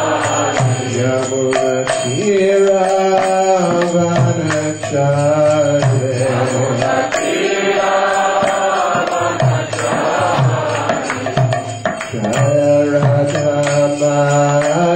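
A man leading a Hindu devotional chant into a microphone, singing long held lines, with a steady percussion beat underneath.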